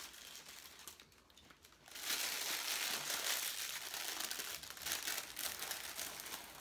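Paper fast-food taco wrappers being unwrapped by hand, crinkling and rustling. There is a short lull about a second in, then steady louder crinkling from about two seconds in.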